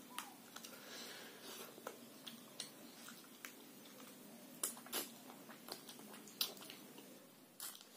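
A person chewing a mouthful of rice and pigeon curry eaten by hand, with soft wet mouth clicks and lip smacks scattered through the chewing.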